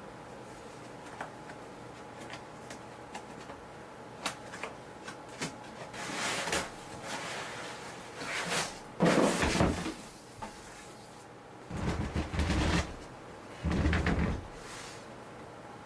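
Household handling noises: scattered light clicks and knocks with several short scraping or rustling bursts, typical of cupboards, drawers and objects being moved. The loudest burst comes about halfway through, with two more later on.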